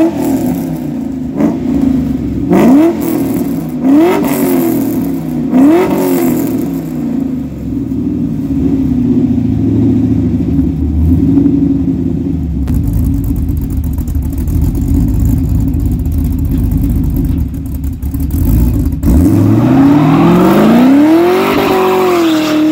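A 5.3 L LM7 V8 through long-tube headers, an equal-length dual exhaust with an X-pipe and Magnaflow Magnapack mufflers: about five quick throttle blips in the first six seconds, then running steadily with a deep rumble. Near the end the revs climb and hold high as the rear tyre spins in a smoky burnout.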